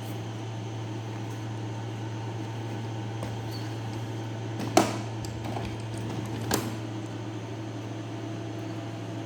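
A steady low hum of room noise, with two short light clicks about five and six and a half seconds in.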